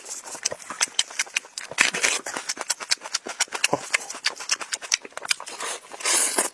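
Close-miked mukbang eating sounds: wet chewing and mouth smacking, heard as a rapid, irregular run of small clicks and crackles.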